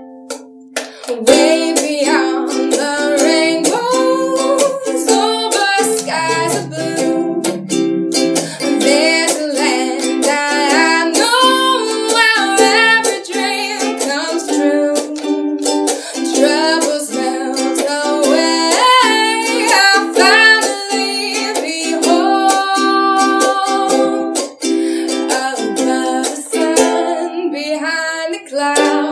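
A woman singing while strumming a ukulele, with steady strums under the melody and a brief break about a second in.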